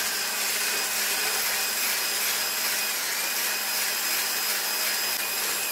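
Electric hand blender fitted with a whisk attachment running steadily, whipping cold whipping cream and condensed milk in a plastic bowl.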